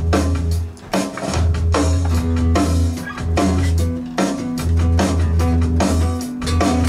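Rock band music: drum kit, guitar and held bass guitar notes.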